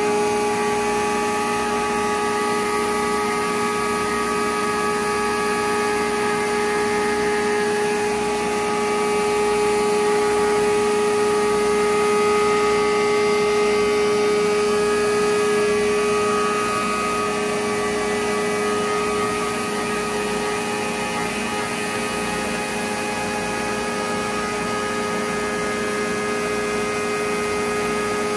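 DMS gantry CNC router milling, its spindle and cut giving a steady whine of several notes over a hiss. One of the lower notes drops out a little past halfway.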